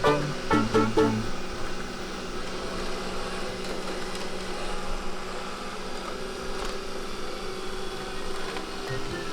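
Xiaomi robot vacuum cleaner running with a steady motor hum. A few plucked music notes sound in the first second.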